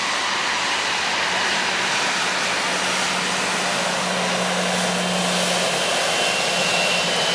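Cessna Citation X business jet's turbofan engines, a steady loud rushing noise with a thin high whine coming in about five seconds in.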